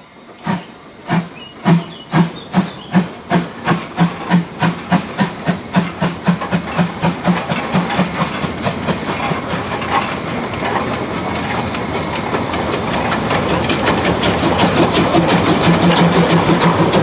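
Narrow-gauge steam locomotive pulling away, its exhaust chuffs slow at first and quickening until they run together into a steady rush that grows louder toward the end.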